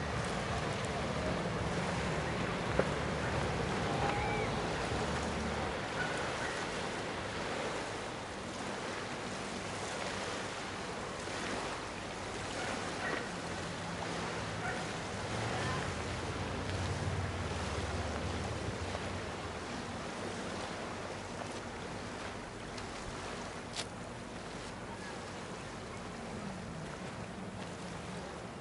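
Lake water lapping with wind on the microphone, and a distant motorboat engine running low in the first few seconds and again around the middle. A single sharp click near the end.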